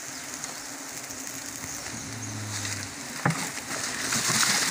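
Bundle of burning palm fronds crackling and hissing as it is held against a tree trunk to smoke out wild bees, the hiss growing near the end. A brief low hum about two seconds in and a sharp snap a little after three seconds.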